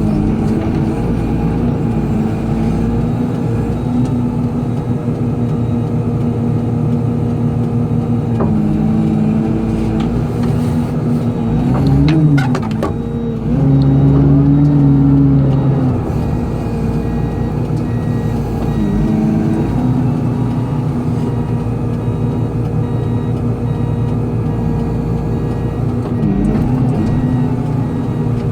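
Excavator diesel engine running steadily through bucket work. About halfway through it picks up, higher and louder for a few seconds as it takes load, with a few sharp knocks just before.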